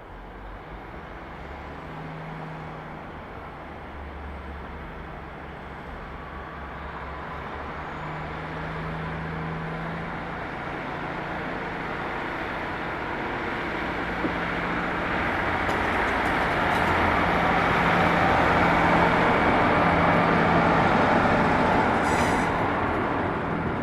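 Diesel-hauled freight train approaching and passing close by: a low engine hum under growing rail and wheel noise that swells steadily to its loudest near the end.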